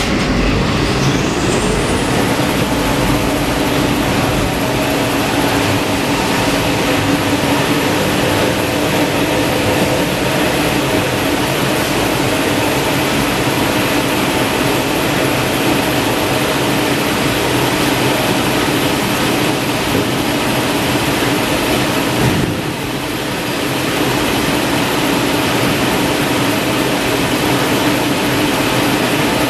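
Industrial tissue paper rewinding line running: a loud, steady mechanical drone with a steady hum and a high whine that rises over the first two seconds and then holds. The noise dips briefly about three-quarters of the way through.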